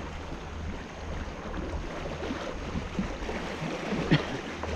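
Strong wind buffeting the microphone in a steady low rumble, with water lapping and scattered small knocks, a sharper click about four seconds in.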